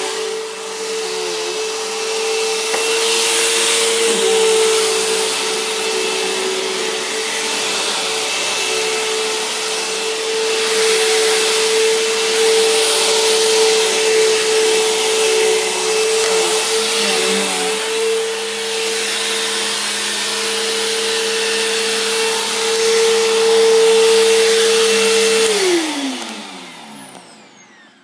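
Bissell CleanView Helix bagless upright vacuum running steadily with its motor whine and suction rush. Near the end it is switched off and the motor spins down, its pitch falling away as it goes quiet.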